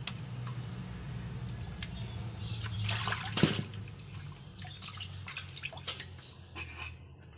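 Water splashing and sloshing as kangkong (water spinach) is swished by hand in a stainless-steel basin of water. The splashing is loudest about three and a half seconds in, with another splash near the end. Crickets trill steadily in the background.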